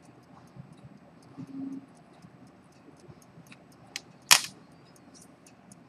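Antique fusee pocket watch ticking rapidly and evenly, faint. A dull knock about a second and a half in, and a sharp click about four seconds in, the loudest sound, with a lighter click just before it.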